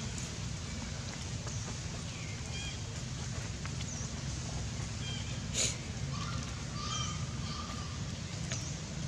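Outdoor ambience: a steady low rumble with faint short high chirps scattered through, a sharp click a little past halfway, and a faint held tone shortly after.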